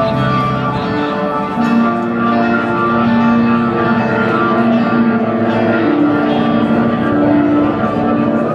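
Live band playing an instrumental passage on acoustic and electric guitars, with long held notes and no singing.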